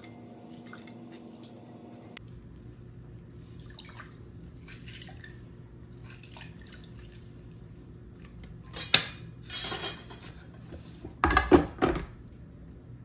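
Orange juice dripping into a glass blender jar as an orange is squeezed by hand. Near the end come two loud clusters of knocks and clatter as the jar is handled and set onto the blender base.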